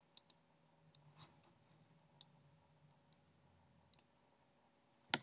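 A few short, sharp clicks over a faint low hum: a quick pair at the start, single clicks about two and four seconds in, and a louder one near the end.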